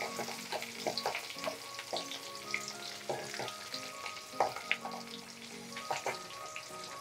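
Chopped small onions and mustard seeds frying in hot oil in a steel kadai: a steady sizzle with many scattered crackles and pops, a few louder ones about four and a half and six seconds in, as the pan is stirred with a steel ladle.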